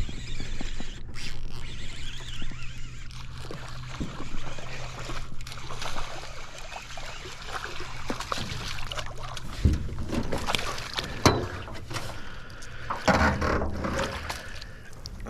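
Sounds aboard a small boat: water lapping and trickling, with scattered knocks and clicks of handling. Under them runs a steady low hum that stops about ten seconds in.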